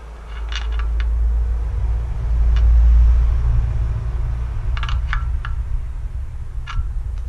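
Light metallic clicks and clinks of a hand tool against an LED work light's metal mount on a mini excavator's boom, a few at a time with short ringing. Under them runs a low rumble that swells for the first few seconds and then slowly eases.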